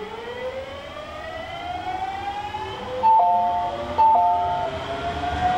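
A JR Shikoku 7200 series electric train's inverter-driven traction motors give a whine that rises steadily in pitch as the train accelerates. About three and four seconds in, two short two-note horn blasts are the loudest sounds.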